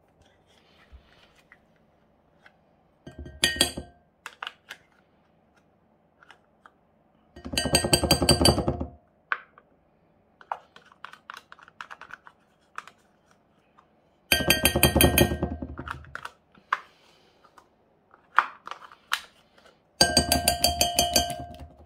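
A metal spoon rapped quickly and repeatedly against a glass bowl to knock cream cheese off it. The rapping comes in four bouts of fast, ringing clinks, each a second or two long, with soft scraping clicks between.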